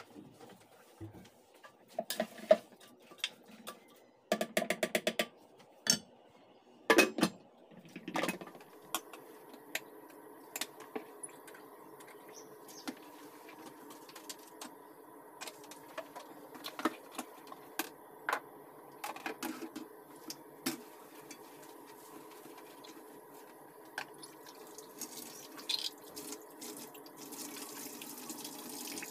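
Kitchen clatter as a metal pot, a glass and utensils are knocked and set down on a tiled counter, with a quick rattle about five seconds in, then scattered clinks over a steady hum. Near the end a hand rubs a cloth over the tiles.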